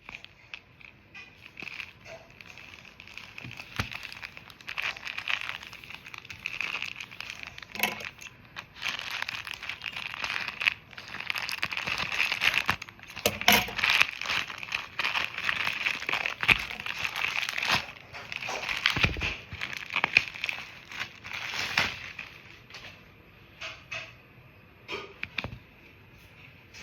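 Packaging crinkling and rustling as bedsheets are unpacked by hand, with scattered sharp clicks and crackles. It is loudest through the middle stretch and quieter near the start and end.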